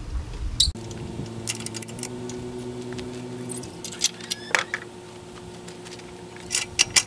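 Metal clinks and clicks of tie-down strap hooks and a ratchet buckle being released from a motorcycle carrier, in a few scattered bursts.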